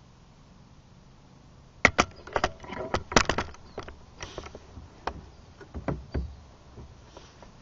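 A run of sharp, irregular knocks and clicks of handling against a kayak, starting about two seconds in and fading out after about four seconds, with a couple of heavier thumps near the end.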